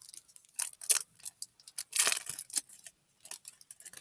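Foil wrapper of a Pokémon booster pack crinkling and tearing as it is opened: irregular sharp crackles, with a longer crackle about two seconds in.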